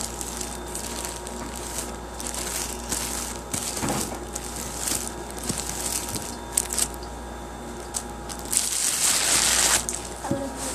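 Slime being squeezed and kneaded by hand, crackling and popping in a run of short bursts, with a longer, louder stretch near the end.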